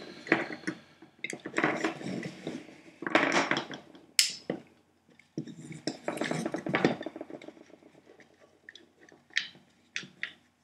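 Hands taking apart the plastic casing of an old Bosch battery pack: plastic parts rubbing, scraping and clicking against each other, with a sharp click about four seconds in and scattered light clicks near the end.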